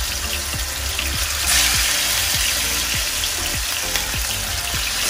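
Hilsa fish pieces frying in hot oil, a steady sizzle that swells briefly about a second and a half in.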